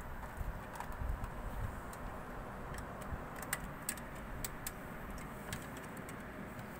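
Scattered light clicks and ticks from handling PC case parts and cables, irregularly spaced, over a steady low background hum.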